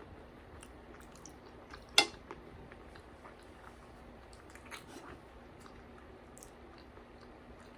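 Quiet chewing and mouth sounds of someone eating, with one sharp click about two seconds in and a few softer clicks later.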